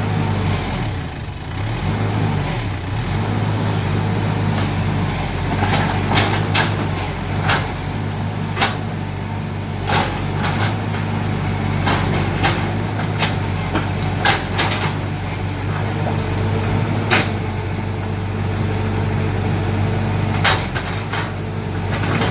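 Mini excavator engine running steadily, dipping briefly in pitch near the start, with a string of sharp, irregular knocks and clanks through the middle and later part as it digs.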